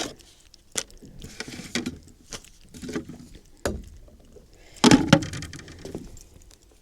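A freshly landed small mackerel flapping, making irregular slaps and knocks, with a louder cluster about five seconds in.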